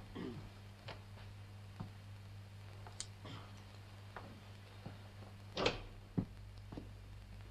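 Faint scattered footsteps and small knocks over a steady low hum on an old film soundtrack, then, a little past five and a half seconds in, a louder short scraping noise followed by a sharp knock as a door is opened and passed through.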